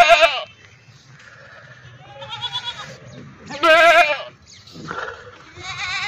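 Makhi Cheeni goats bleating several times in quavering calls, the loudest about four seconds in.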